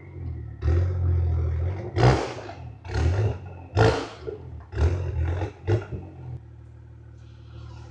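Tuned Stage 2 manual Toyota GR Supra's turbocharged inline-six engine, revved in about six short, loud throttle blips over a steady low engine hum. About six seconds in it drops back to a quieter steady hum. No exhaust burbles or pops are tuned in.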